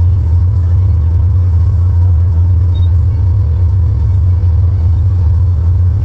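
Tractor engine running at a steady speed under load while pulling a square baler, heard as an even, low drone.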